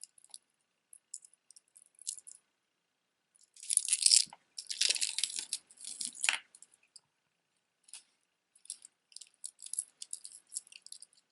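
Costume jewelry being handled: small beads and metal pieces clicking and clinking, with a louder jumble of rattling pieces about four seconds in that lasts a couple of seconds.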